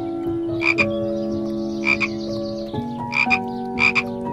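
Frog croaking: short, sharp croaks repeated every second or so, some in quick pairs.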